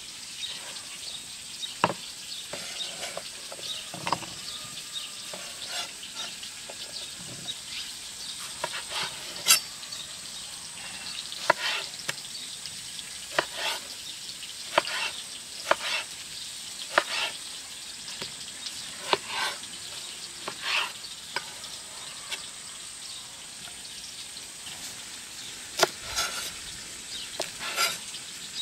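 Irregular sharp clicks and taps of utensils working on food, over a steady faint hiss.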